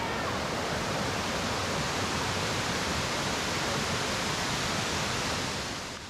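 Steady rushing roar of Amicalola Falls' cascading water, fading out at the very end.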